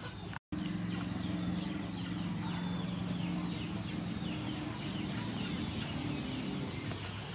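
Chickens in the background, with a run of short, high, falling peeps repeating two or three times a second, over a steady low hum. The sound cuts out briefly about half a second in.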